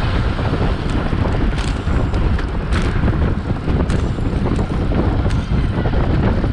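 Wind buffeting the microphone of a bicycle-mounted camera riding at race speed, a loud, steady rumble, with a few short sharp clicks.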